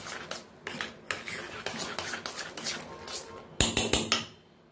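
Metal spoon stirring and scraping thick urad dal vada batter in a stainless steel bowl, in quick repeated strokes. Several sharp clinks of the spoon against the bowl near the end.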